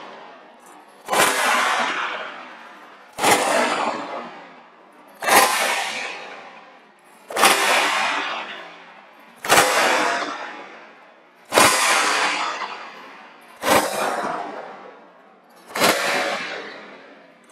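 Whip cracks aimed at candle flames to snuff them out, eight in a row, about one every two seconds. Each crack is sharp and rings out in a long, fading echo.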